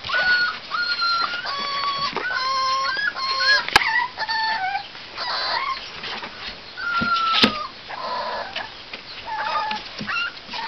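A litter of American pit bull terrier puppies whining and squealing: many short, high-pitched cries overlapping, each held about half a second, with a couple of sharp clicks.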